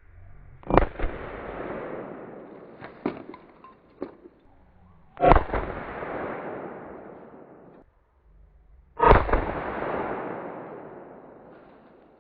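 Three gunshots about four seconds apart, each followed by a long rolling echo that fades over about three seconds. A few small clicks fall between the first and second shot.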